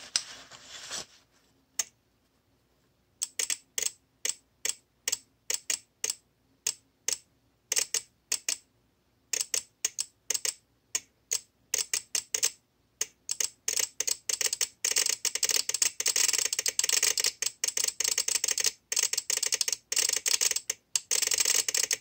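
Relay on a VXT-24 boiler water feeder control board clicking erratically. The clicks begin a few seconds in, scattered and uneven, then come faster and faster until they run nearly together like a Geiger counter. The chatter comes from water shorting the manual feed switch, which powers the feed valve and bypasses the anti-flooding logic.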